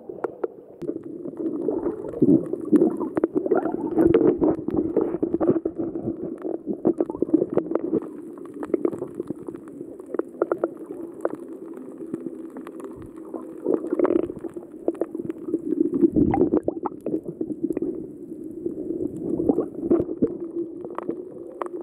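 Water gurgling and bubbling, heard muffled through a submerged phone microphone while snorkelling, with many small clicks and crackles over a steady low hum.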